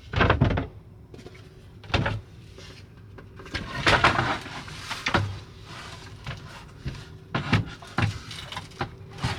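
A series of short knocks and clatters, like cupboard doors and objects being handled in a small room, about seven separate bumps with a short scrape in the middle.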